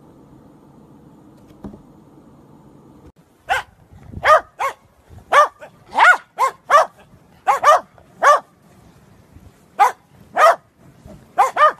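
A dog barking in short, sharp barks, more than a dozen in irregular groups, starting about three seconds in after a faint steady hum.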